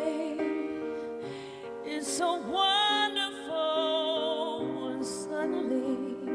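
A female pop singer singing a slow, tender ballad live, holding notes with a wavering vibrato, over soft piano accompaniment.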